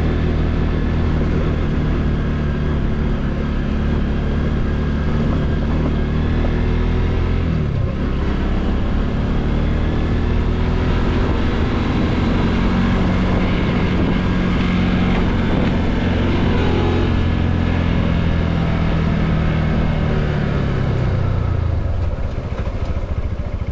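Bajaj Pulsar NS200 single-cylinder engine running under way, heard from the rider's seat. The engine note dips and climbs again about eight seconds in, and the revs fall away near the end.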